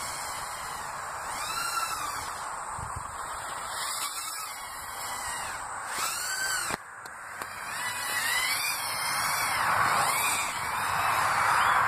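130 mm micro racing quadcopter's Racerstar brushless motors and propellers whining on a 3S battery, the pitch swelling up and down again and again as the throttle is worked. The whine cuts back sharply about seven seconds in, then climbs again.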